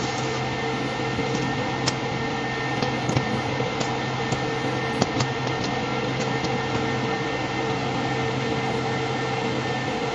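Arc welding machine humming steadily, with scattered sharp clicks and crackles.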